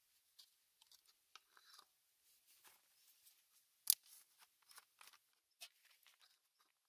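Faint handling clicks and rustles as a plastic funnel is fitted into an engine's oil filler neck, with one sharper click about four seconds in.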